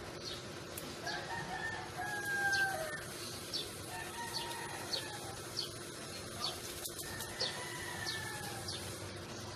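A rooster crowing: one long crow beginning about a second in, then two fainter ones later. Short, high chirps repeat throughout.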